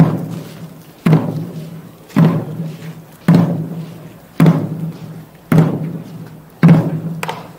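Large Korean barrel drum (buk) beaten in a slow, steady beat, about one heavy stroke a second, each a low ringing boom that dies away before the next; a lighter extra stroke comes near the end.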